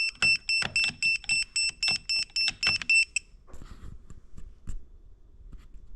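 Electronic EMF meter sounding its alarm: short high-pitched beeps about three a second, which stop about three seconds in, followed by faint handling clicks.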